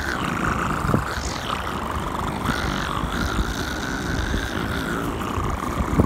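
A steady, engine-like drone with a wavering whine, over wind buffeting the microphone.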